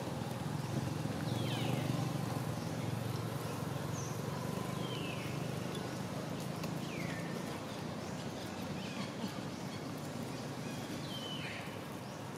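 Outdoor background with a steady low rumble, and a handful of short, high animal calls, each falling in pitch, spaced a couple of seconds apart.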